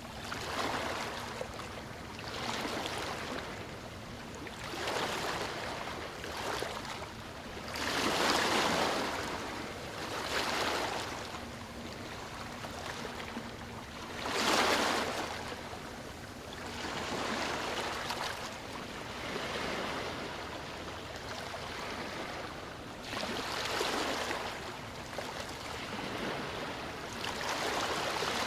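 Sea waves washing in, one swell of surf after another every two to four seconds, the loudest about eight and fourteen seconds in.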